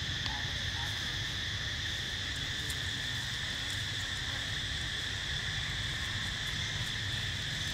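Steady forest insect chorus, an unbroken high buzzing with two even pitches, over a low rumble.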